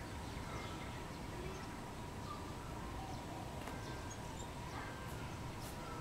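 Faint, scattered short bird chirps from several birds over a steady low background noise and a faint steady tone.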